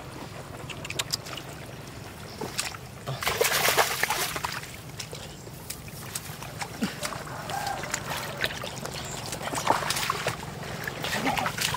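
Splashing and sloshing in shallow muddy water as hands and feet move through it, with a louder stretch of splashing about three seconds in.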